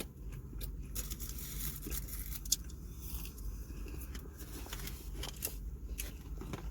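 Eating and food-handling noises: small crackling clicks and scrapes of paper wrapping and chewing, with one sharper click about two and a half seconds in, over the low steady hum of a car interior.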